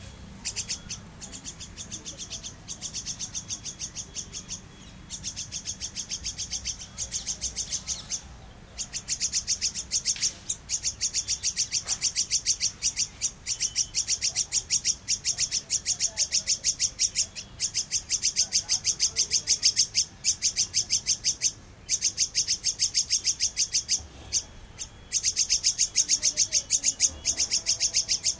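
Palm squirrel calling: a long run of rapid, high, evenly spaced chirps, several a second. The chirps come in bouts broken by short pauses and grow louder partway through.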